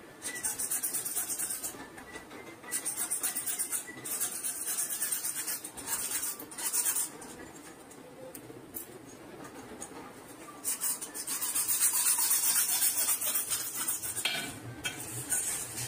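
Hacksaw cutting through a pipe at a washbasin fitting, in several runs of rapid rasping strokes with short pauses between.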